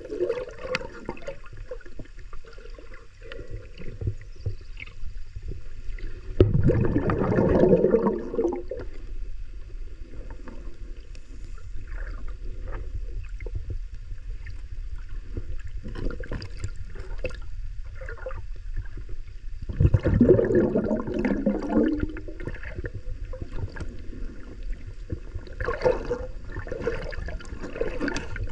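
Underwater sound muffled by a waterproof camera housing: hands digging and rustling in seagrass and sand give scattered clicks and crackles. Louder rushing, gurgling surges come about 7 and 20 seconds in, and a shorter one near the end.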